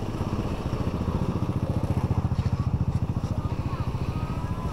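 An engine running steadily with a fast, even pulse, a little louder around the middle.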